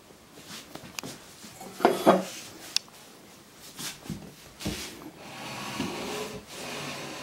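A cat moving about on a cushioned wooden chair close to the microphone: scattered knocks, rubbing and creaks, loudest about two seconds in. A steady hiss comes in during the second half.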